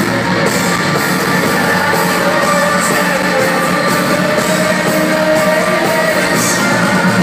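Live rock band playing loudly in an arena, electric guitar to the fore, heard through a phone's microphone in the crowd.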